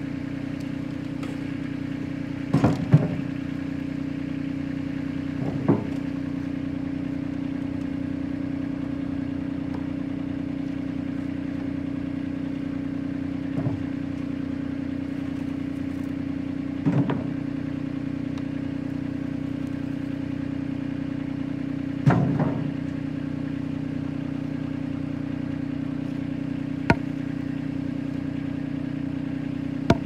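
Tractor engine idling steadily, with a handful of wooden knocks and clatters every few seconds as boards are lifted and dropped off sheets of metal roofing tin.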